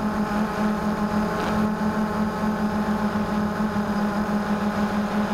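Blade 350 QX2 quadcopter's brushless motors and propellers humming steadily in flight, heard up close from a camera on the airframe, over a low rumble of wind on the microphone.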